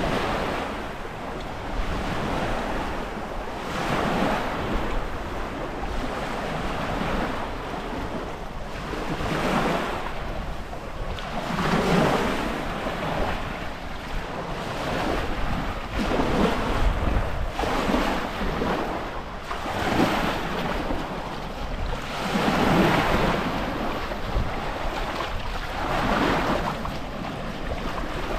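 Small waves breaking and washing up on a beach, swelling and fading every two to three seconds, with wind buffeting the microphone.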